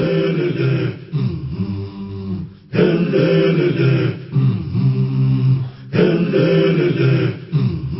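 Low chant-like singing voices repeating the same short phrase about every three seconds.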